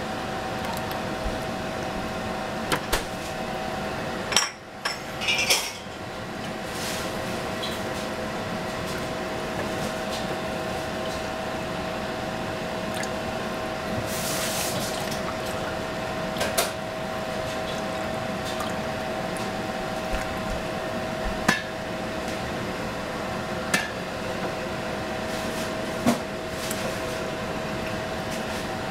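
Milk being poured from a metal saucepan into small glass jars, with a hissing pour about halfway through and scattered sharp clinks of the pan and glass jars, over a steady hum.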